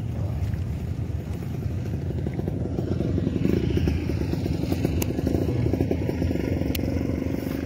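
Motorcycle engine running steadily, louder from about three seconds in.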